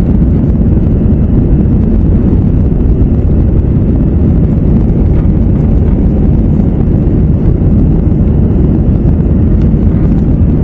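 Airbus A321 cabin noise in the climb after take-off: a loud, steady low rumble of the engines at climb thrust and the airflow over the fuselage, heard from inside the cabin.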